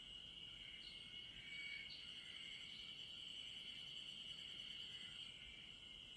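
Faint chorus of insects singing: a steady high-pitched trill, with a few brief chirps over it in the first couple of seconds.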